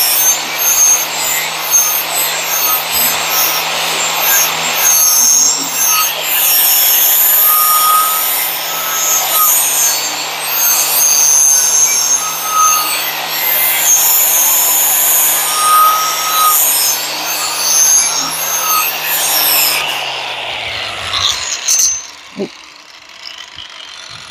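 Angle grinder with a flap disc grinding the cutting edge of a steel lawn mower blade held in a sharpening jig: a steady motor whine under a loud, rasping grind. About twenty seconds in the grinder is switched off and its pitch drops as it winds down, followed by a couple of light clicks.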